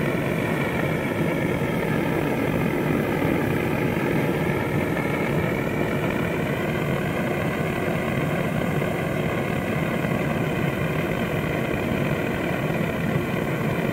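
Steady machine-like drone with a faint wavering whine, from the equipment running the homemade oxalic acid fumigator at the hive entrance as it vaporises the acid into the hive.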